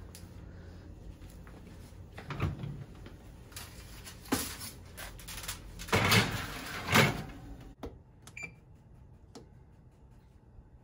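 Oven door opened and a foil-covered baking dish pushed onto the rack, with clattering knocks and crinkling foil, the loudest knocks about six and seven seconds in. A low hum stops suddenly about eight seconds in. Then a short electronic beep and clicks as the oven timer buttons are pressed.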